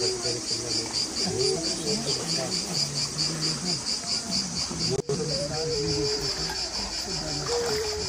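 Insects chirping in a fast, even pulsing rhythm of about five pulses a second, under soft music with a held melody note that steps between pitches. The sound cuts out for an instant just after halfway.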